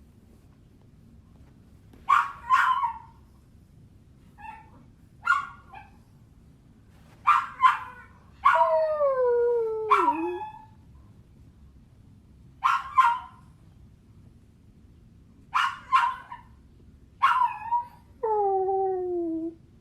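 A dog whining: short high whimpers, mostly in quick pairs every second or two, with two longer whines that slide down in pitch, one about halfway through and one near the end.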